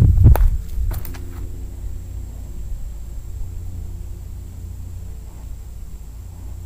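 Steady low rumble with a faint, even hum, typical of an engine running some way off. It is preceded by a few knocks and rustles in the first second and a half.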